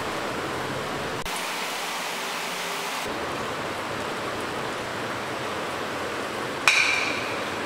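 Butter and tomato masala sizzling steadily on a hot tawa, a fine even hiss. About seven seconds in comes one sharp metallic clink with a short ring.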